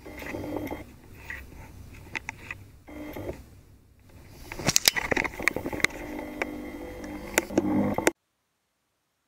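Scattered clicks, knocks and scraping in a small room, with a few louder sharp clicks around the middle. It cuts off suddenly to silence near the end.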